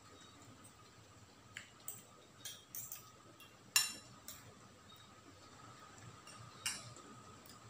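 A metal spoon and fork clinking and scraping against a ceramic plate while eating, in a handful of irregular taps, the loudest about four seconds in.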